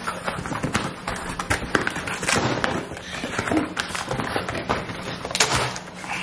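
Brown paper packaging crinkling and rustling as a parcel is opened by hand, with quick taps and a few knocks from handling.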